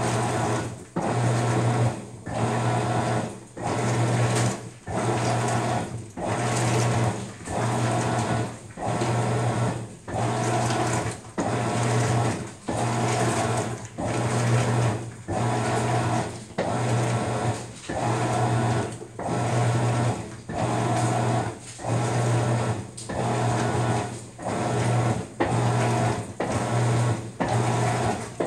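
Maytag MVWX655DW1 top-load washer agitating a load of dish towels in a deep water wash. The drive hums in even strokes about once a second, each followed by a short pause, heard from inside the water-filled drum.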